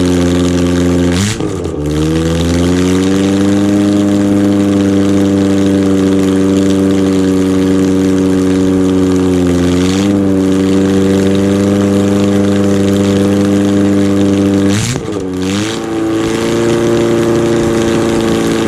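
Freshly rebuilt 2.0 litre Ford Pinto OHC four-cylinder engine (1991 202 block) running steadily on its first test run. Its speed shifts about a second in, briefly around ten seconds, and again about fifteen seconds in, then it settles back to a steady run.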